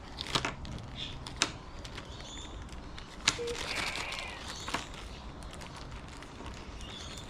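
Scattered clicks and light knocks of small hard parts of a paintless dent repair kit being handled, such as its hammer and screw-on heads.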